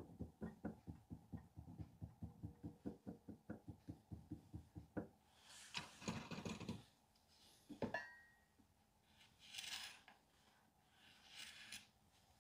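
Clay bust being tapped firm, with rapid soft thuds about four a second for the first five seconds. Then come a few rasping strokes of a tool scraping the clay, with one knock in between.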